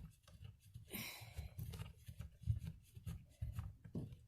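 Faint handling noise: small clicks, rubbing and low knocks as the nuts on a caravan's mains socket are worked loose by hand, with a heavy breath about a second in.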